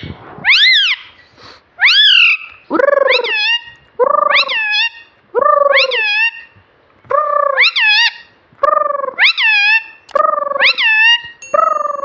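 Ringneck parrot calling over and over: two high rising calls, then about seven two-note calls, each a lower note sweeping up into a higher one, about one every second and a half.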